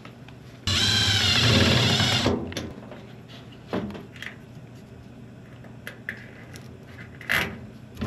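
A power drill runs for about a second and a half, its pitch wavering as it works, followed by a few light clicks and knocks from handling parts.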